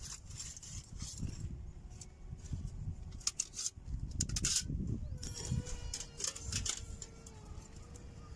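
Strong wind buffeting the microphone with an uneven low rumble, broken by several sharp clicks and knocks, and a faint steady tone in the second half.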